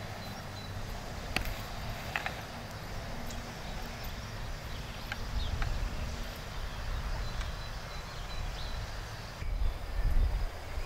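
Open-air ambience: wind rumbling on the microphone, stronger near the end, with scattered bird chirps and a couple of light clicks in the first few seconds.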